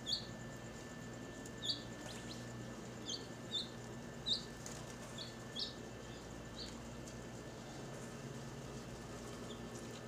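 Lovebirds giving short, high chirps, about ten scattered irregularly through the first seven seconds and one faint one near the end, over a steady low background hum.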